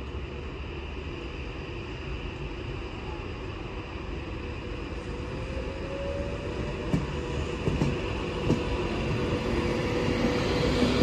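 Avanti West Coast Class 390 Pendolino electric train moving past, its rumble growing louder as it nears, with a few sharp clicks from the wheels from about seven seconds in.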